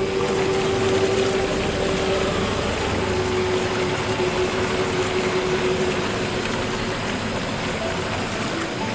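Steady rushing noise of a forest-ambience track, with one held low note from the background music sounding through it.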